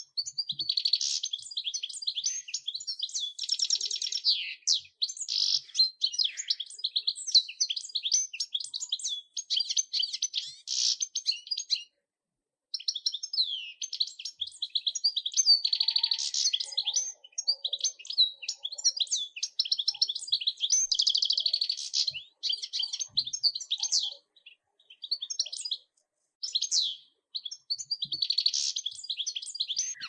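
A finch, the pintassilgo, singing a long, fast, high-pitched twittering song in runs of several seconds, broken by short pauses about 12 and 25 seconds in.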